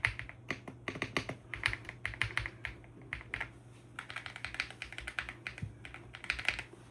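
Typing on a mechanical keyboard: quick runs of keystroke clacks in bursts, with a brief lull about three seconds in.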